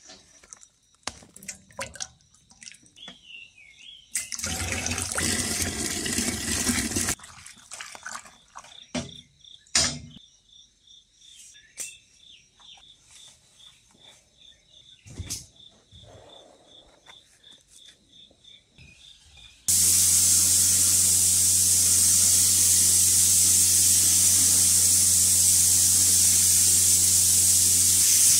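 Paint poured from a strainer bag into a bucket for a few seconds, followed by scattered small knocks and rustles of handling. About two-thirds of the way through, a handheld paint spray gun starts abruptly and runs with a steady loud hiss over a low hum.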